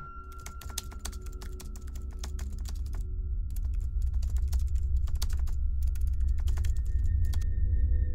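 A rapid, irregular run of sharp clicks and taps from hands working a device, which stops a little before the end. A low steady hum underneath grows gradually louder.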